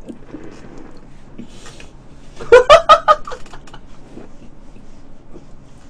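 A man laughing: a short, loud burst of about five quick "ha" pulses about two and a half seconds in.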